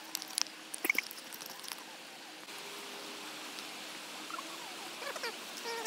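Wooden pestle pounding chilies in a wooden mortar: a few irregular knocks in the first two seconds, then the pounding stops and a steady background hiss remains.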